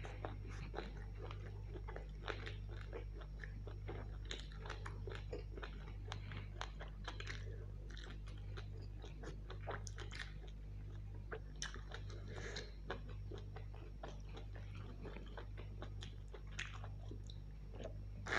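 Close-miked chewing of mutton curry and luchi: a steady run of wet mouth smacks and small clicks as the food is bitten and chewed. A low hum runs underneath.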